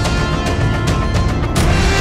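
Background music with a steady beat, with a cymbal-like swell about a second and a half in.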